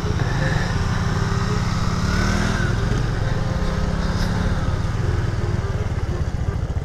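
Stretched Yamaha Mio scooter's single-cylinder four-stroke engine running while the scooter is ridden along, its pitch rising briefly about two seconds in.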